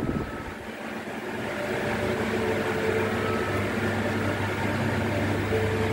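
Floor-standing Daikin 5 PK air-conditioner indoor unit running, its blower giving a steady airy hiss with a low, even hum.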